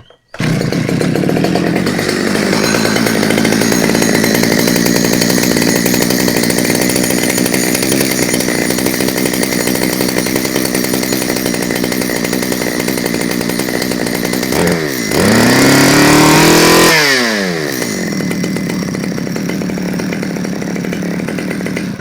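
Stihl 009L two-stroke chainsaw engine, run with the bar and chain off, catching about half a second in and running steadily. About fifteen seconds in it is revved up and held for a couple of seconds, then drops back to idle, and it stops right at the end.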